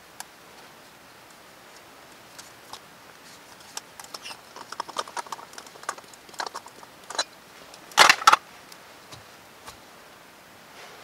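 Small metal clicks and scrapes as a SOTO Amicus backpacking stove is unscrewed from its gas canister and handled, with two sharper clicks close together about eight seconds in.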